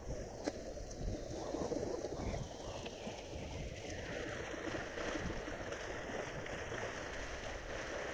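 Wind buffeting the camera's microphone: a steady rush with an uneven low rumble, over faint lake water lapping against the shore rocks.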